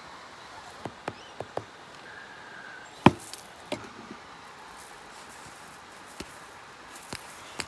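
Wood campfire crackling: irregular sharp pops and cracks, a handful over the seconds, the loudest about three seconds in.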